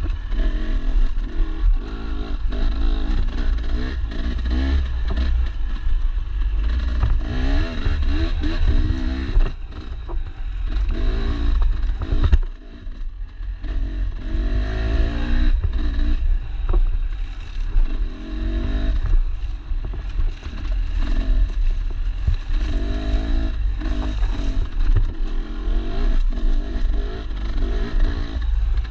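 Dirt bike engine revving up and down again and again under hard riding, with clatter and scraping from the bike over rough ground. The engine note drops away briefly about twelve seconds in, then picks up again.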